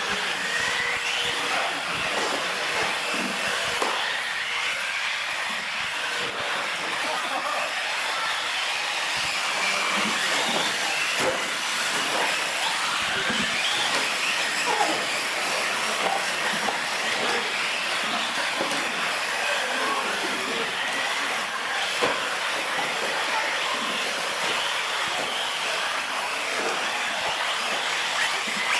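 Several small electric RC cars racing on a concrete floor: a steady high-pitched motor whine that rises and falls with the throttle, with occasional knocks as the cars hit ramps, barriers or each other.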